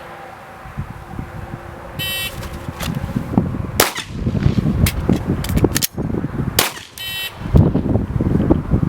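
Electronic shot-timer beep, then several shots from a 9mm Glock 17 Gen 2 pistol during a timed drill, then a second timer beep about five seconds after the first marking the par time. Wind rumbles on the microphone throughout.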